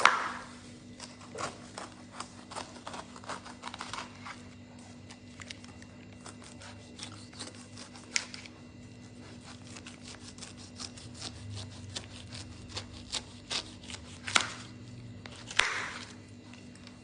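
Irregular light clicks and knocks of kitchen handling, with a few louder knocks scattered through; a faint steady hum underneath.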